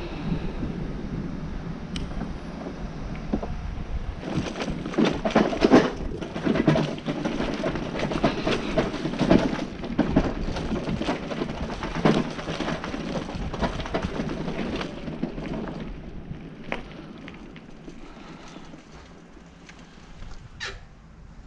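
Wind rumbling on the microphone under a run of clattering rattles and knocks, which thin out and fade after about sixteen seconds. A few sharp clicks follow near the end.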